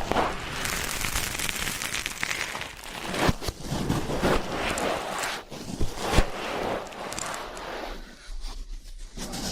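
Ear pick scraping and rubbing close to the microphone in ear-cleaning ASMR, an irregular scratchy rustle with a few sharp clicks and a quieter spell near the end.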